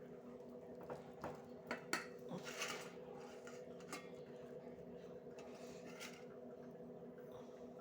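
Faint, scattered clinks and scrapes of utensils against dishes as food is served. The clicks are spread over the first few seconds and there is one more around six seconds in, over a steady low hum.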